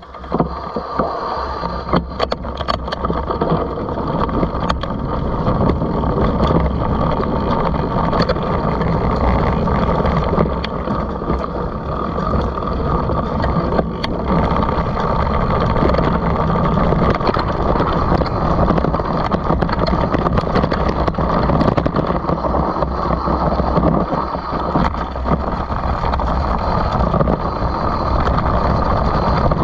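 Mountain bike riding fast down a dirt trail: a steady rumble of wind buffeting the camera's microphone and tyres rolling on dirt and leaves, with frequent clicks and clatters from the bike over bumps. It grows louder over the first few seconds.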